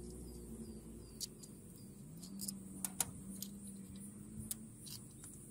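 Scattered light metallic clicks of a socket wrench and extension working a 10 mm bolt on an ignition coil bracket, the sharpest about three seconds in. A low steady hum runs under them from about two seconds in to near the end.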